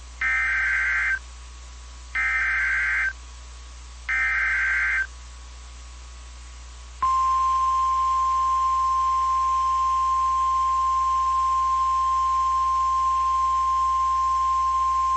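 Emergency Alert System activation on NOAA Weather Radio heralding a tornado warning. Three one-second bursts of buzzy SAME header data tones come first. About seven seconds in, the steady single-pitch 1050 Hz warning alarm tone starts and holds.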